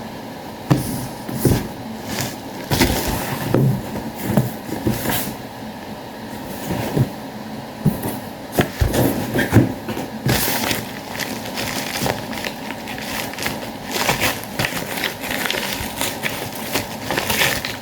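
A parcel being torn open by hand: irregular tearing, crinkling and knocking of packaging, in uneven bursts with a few sharper knocks.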